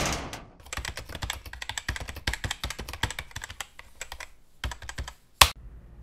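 Irregular tapping of keys on a laptop keyboard, a scatter of small light clicks. It ends with one single sharp, louder knock just before the end.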